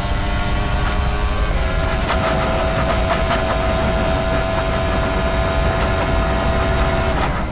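Onboard sound of a Formula One car's turbocharged V6 at speed on a straight. The engine note climbs briefly, then holds steady and cuts off just before the end. In the middle comes a cluster of sharp scraping knocks from the splitter, which is engineered to scrape on the track to stall it and cut high-speed drag.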